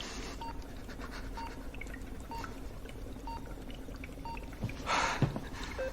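Bedside patient monitor beeping steadily, a short single-pitch beep about once a second, over a low steady hum. About five seconds in, a breathy exhale is the loudest sound.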